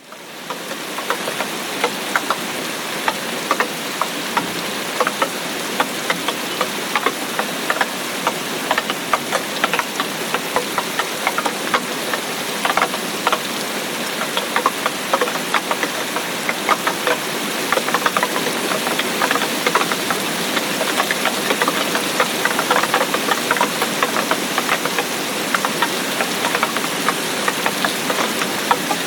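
Steady rain with many separate drops tapping sharply through the even hiss of the downpour, fading in over the first second.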